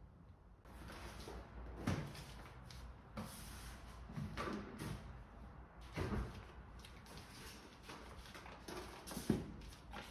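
Household handling sounds: a series of sharp knocks and clunks, about four over several seconds, with rustling between them.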